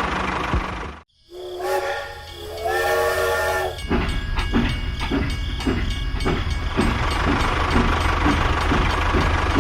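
A small motor hums steadily and stops abruptly about a second in. A two-note whistle-like horn then sounds for about two and a half seconds. After it the motor runs again with a regular ticking, about three ticks a second.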